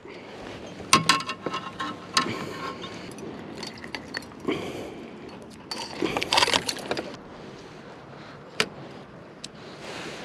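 Handling noise as a crappie is taken off the hook and clipped onto a stringer at the side of a kayak: scattered small clicks and clinks with short rustling bursts, the busiest stretch about six seconds in.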